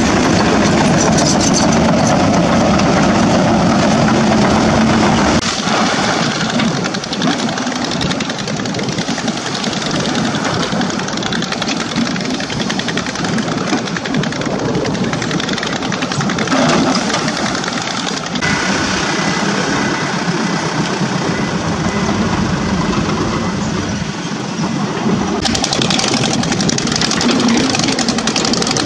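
Heavy diesel engines of crawler excavators and a dump truck working in a shallow river. The first few seconds are louder and deeper, from a Kobelco SK200-10 excavator close by. The sound changes abruptly several times as the footage cuts between machines.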